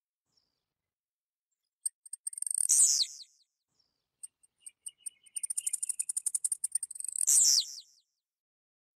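Blue-black grassquit (tiziu) singing twice. Each song is a run of rapid high ticks that builds into a loud note sweeping downward, and the second run of ticks is longer.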